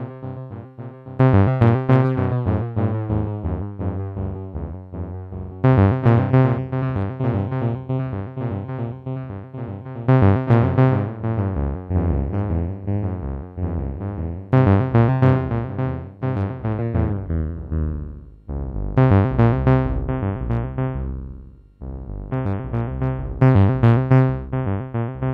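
Synthesizer notes played through a Strymon Magneto digital tape-echo module, in phrases every few seconds with echo repeats trailing after them. The repeats slide up and down in pitch as the module's tape speed/pitch knob is turned.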